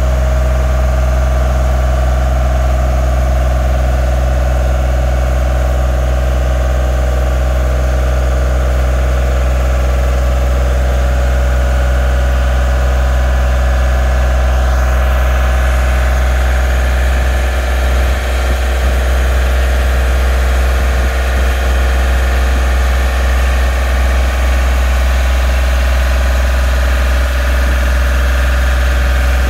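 Genie S-40 boom lift's engine running at a steady speed, a constant low drone, while the turret swings the boom around.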